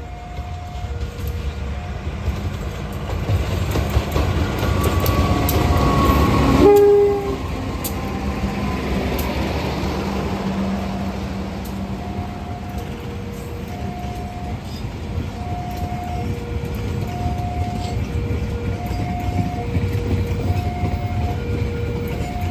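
A train passing a railway level crossing while the crossing's warning signal sounds a two-tone alternating alarm throughout. The train's noise builds to a peak about seven seconds in, with a brief horn note, then drops suddenly into a steady rumble as the carriages roll past.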